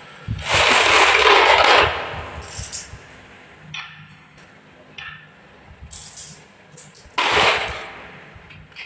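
Marbles rolling and clattering down a wooden marble run: a long spell of rattling near the start, a second shorter one near the end, and scattered single clicks in between.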